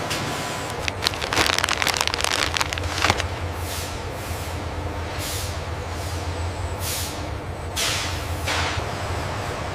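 Factory machinery running with a steady low hum. A burst of metallic rattling comes about a second in, followed by a series of short air hisses like pneumatic releases.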